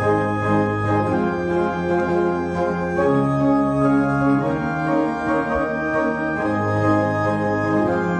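Organ music: slow sustained chords over held bass notes, the harmony changing every few seconds.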